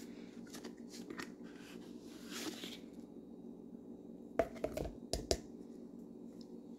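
Close handling noises: rustling and crinkling, with a few sharp knocks about four and a half to five and a half seconds in.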